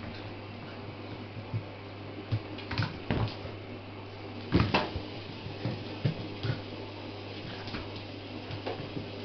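An adult wolfdog and a wolfdog puppy play-fighting on a hard kitchen floor: scattered knocks and scuffles of paws and bodies, the loudest cluster about four and a half seconds in, over a steady low hum.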